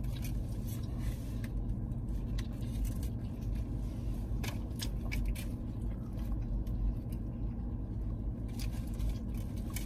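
Eating sounds in a car cabin: scattered small clicks and crackles of chewing and of a foam food container and wrappers being handled, over a steady low cabin hum.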